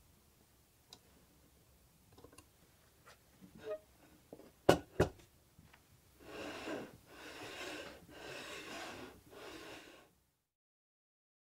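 A few light ticks and taps, then two sharp clicks about a third of a second apart, the loudest sound here. After them, a switched-off hand electric planer is slid back and forth along the aluminium rails of a slider jig: four sliding strokes of about a second each.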